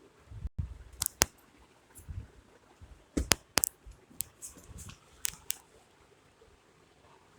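Plastic parts of an 18-inch table fan being handled, making about a dozen sharp, irregular clicks and knocks with a few dull thuds in between. The fan motor is not running.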